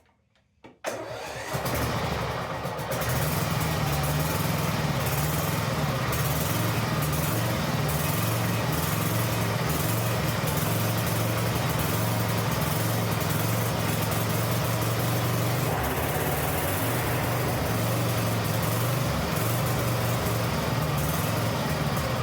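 Lawn mower engine starting about a second in, then running steadily at a constant speed.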